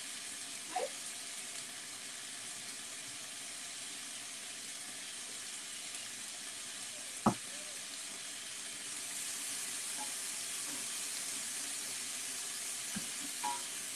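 A pan of chicken, onion and zucchini sizzling steadily, a little louder in the second half, with one sharp knock about seven seconds in.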